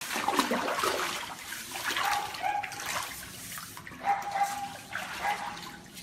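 Water splashing and sloshing on a flooded kennel floor, with a dog giving several short, high, whining cries.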